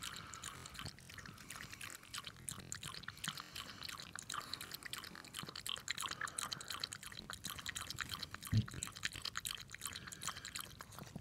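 A Chihuahua lapping water from a stainless steel bowl: a steady run of quick, wet clicking laps. A brief low thump comes about eight and a half seconds in.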